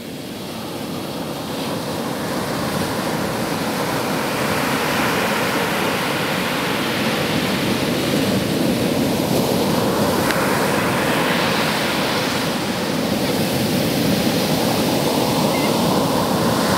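Sea surf washing up over sand at the water's edge: a steady rushing hiss of breaking waves and swash, growing louder over the first few seconds.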